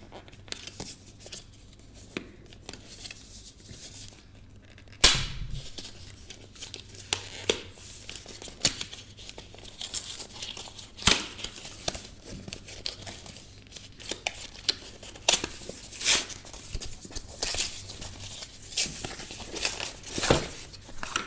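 Packaging being opened by hand: plastic wrap and cardboard tearing and crinkling, with scattered clicks and knocks. The loudest knock comes about five seconds in.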